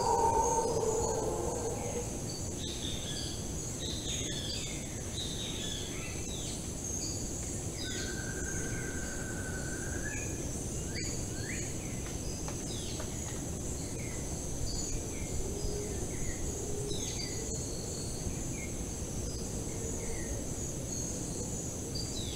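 Tropical dry-forest ambience: a steady high-pitched drone of insects under many short bird chirps and calls, with one long whistled bird note about a third of the way in. A louder two-toned sound fades out in the first two seconds.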